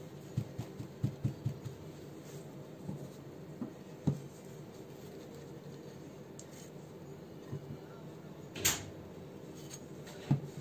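Soft dabbing taps of a folded paper towel on a mirror-effect painted surface over the first couple of seconds, then a light knock about four seconds in. Near the end, one short hiss from a plastic pump spray bottle of water and vinegar, over a faint steady hum.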